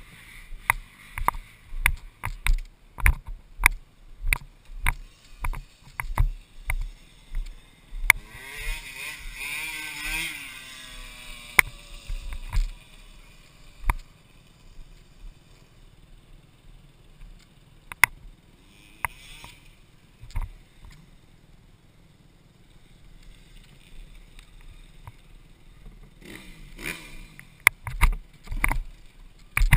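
Helmet-camera sound from riding a 1996 Honda CR250 two-stroke dirt bike: wind buffets the microphone in rough, repeated thumps, with the engine's note sweeping in pitch briefly about eight seconds in.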